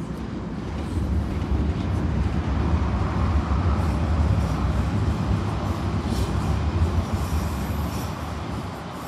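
A London Overground Class 378 electric train running over the level crossing. The steady rumble of its wheels on the rails builds about a second in, stays loudest through the middle and fades near the end.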